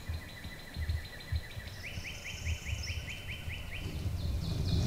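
Songbirds singing: rapid trills of short repeated notes, about five a second, one series stepping up in pitch about two seconds in and a higher trill coming in near the end, over a low rumble.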